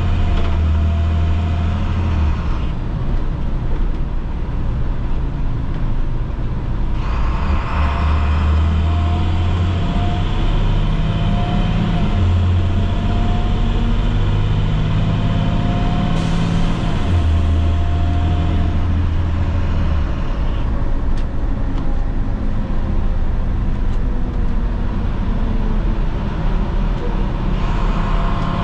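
A school bus's International MaxxForce DT inline-six diesel running while driving, its engine note rising and dropping several times. A sudden hiss comes about halfway through.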